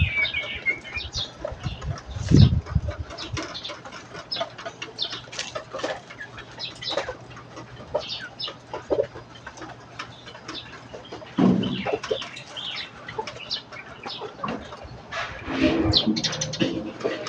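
Chickens clucking: short, scattered calls with a louder call about two-thirds of the way through and a busier flurry of calls near the end.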